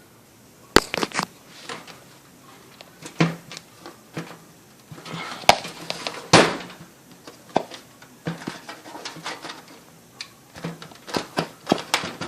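Plastic front panel of an Enermax Ostrog ATX PC case being pulled and worked off its clips: scattered sharp clicks, snaps and knocks, the loudest about a second in and around five to six seconds in, with quicker small ticks near the end.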